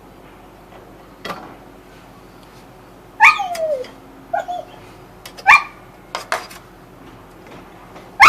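A dog barks about three seconds in, the bark trailing off into a falling whine, and barks again about two seconds later, with another bark right at the end. A few light clicks and taps fall in between.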